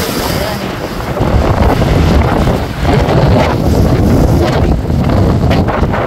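Strong hurricane wind buffeting the phone's microphone in loud, irregular gusts, over choppy waves splashing against a rocky shoreline.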